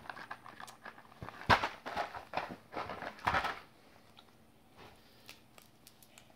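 Candy wrapper and packaging crinkling and rustling in a child's hands, in irregular bursts with the loudest about a second and a half in and another about three seconds in, then only light scattered clicks.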